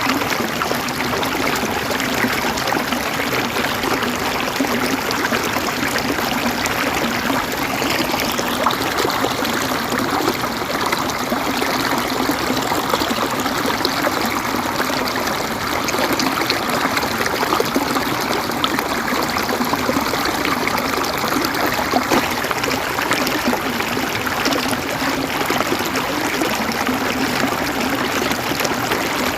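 River water flowing and gurgling over stones in a steady, even rush.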